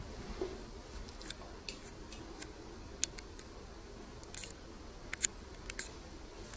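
Quiet indoor room tone with scattered faint sharp clicks and ticks, a little louder a few times past the middle. It ends with one sharp click as the sound cuts off.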